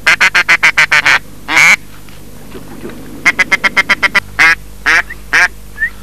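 Loud duck quacking close by: a fast run of short quacks, then a longer one, then a second fast run followed by a few longer, drawn-out quacks. A short rising whistle comes near the end.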